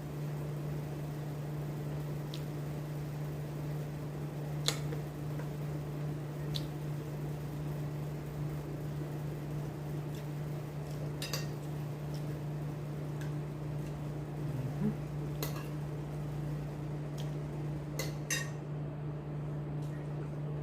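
Occasional light clinks and taps of dishes and utensils, a few seconds apart, with two close together near the end, over a steady low hum.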